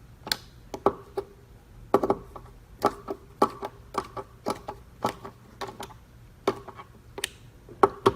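Hand screwdriver clicking as small machine screws are given their final snug tightening into a vacuum filter plate: a string of sharp, irregular clicks, about two a second, some with a brief metallic ring.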